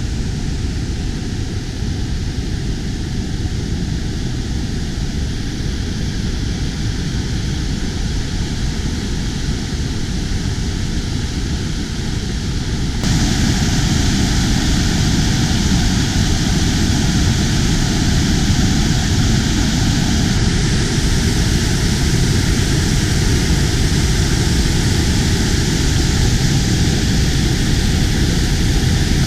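Steady loud rushing noise with no distinct events, stepping up in level about thirteen seconds in.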